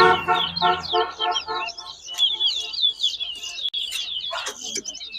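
Caged towa-towa finches singing, rapid high-pitched twittering and chirping that goes on without a break. For the first two seconds a separate quick run of short, lower pitched notes plays over it.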